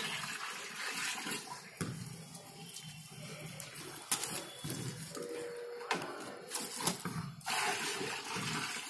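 Brown herbal liquid poured from metal vessels into a large metal pot, splashing and gushing steadily, with a few sharp knocks in the second half.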